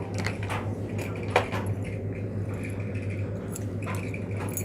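Scattered small clicks and taps from hands handling slime or its plastic container, the sharpest about a second and a half in, over a steady low hum.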